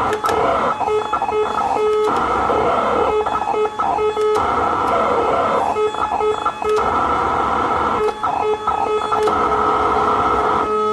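Modded POLY SOUND toy synthesizer, built on a TESLA organ chip with an added Polivoks filter, playing a gritty filtered sound with a short note pulsed several times in quick succession. It plays in phrases broken by brief gaps every couple of seconds.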